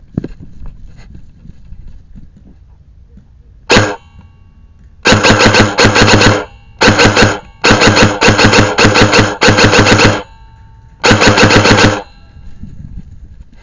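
Airsoft rifle firing full-auto: a short burst just before 4 seconds in, then four longer rapid bursts of evenly spaced shots over the next eight seconds, loud at the gun.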